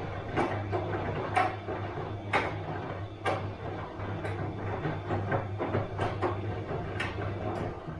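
Bosch front-loading washing machine tumbling its load: a steady low motor hum with a splashing knock about once a second as the drum turns. The knocks stop near the end.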